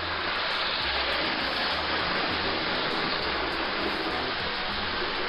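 Steady whirring hiss of a Hornby Mallard A4 OO-gauge model locomotive running in reverse around its track, building up speed.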